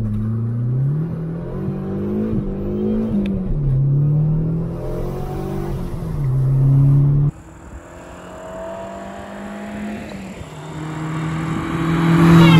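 Fiat Uno Turbo i.e.'s turbocharged four-cylinder petrol engine under full-throttle acceleration from a standing start, heard from the cabin, its pitch climbing and dropping back at two upshifts. About seven seconds in, the sound cuts to the same car heard from outside, quieter at first and growing louder as it approaches near the end.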